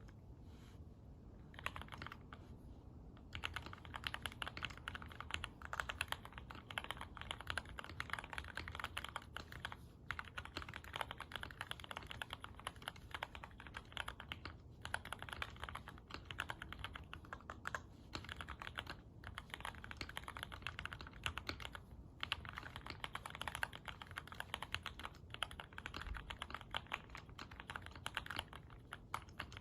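Typing on a QK65 mechanical keyboard with linear Cherry MX Black Hyperglide switches, lubed with 205g0 and filmed, on an aluminum plate. A few keystrokes about two seconds in, then a fast, steady run of key presses with a few short pauses.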